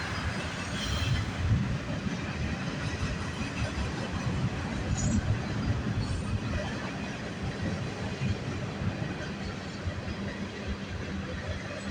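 CN freight train's cars rolling past on the rails: a steady rumble with irregular knocks of wheels on the track.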